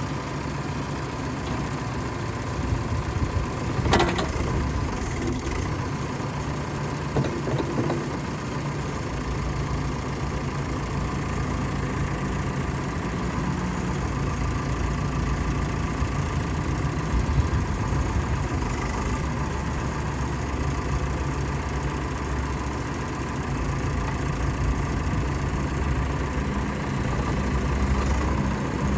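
Diesel engine of a Case 580 Super L loader backhoe idling steadily, with a sharp metallic knock about four seconds in and a few lighter clicks.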